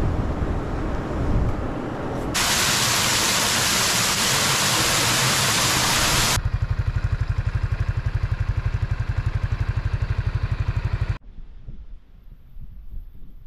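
Water rushing and falling over rocks, a loud steady hiss. Then a low, rapid pulsing at about eight beats a second takes over and cuts off suddenly, leaving faint outdoor sound.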